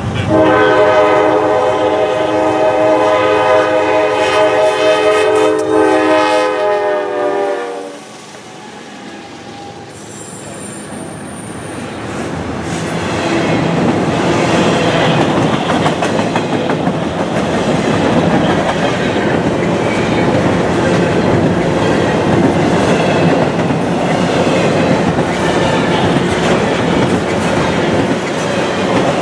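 A CSX AC4400CW locomotive's Nathan K5LA five-chime air horn sounds one long blast of about eight seconds, its chord dropping slightly in pitch at the end as the locomotive passes. After a short lull, the wheels of double-stack intermodal container cars rumble and clatter past, building to a steady roll.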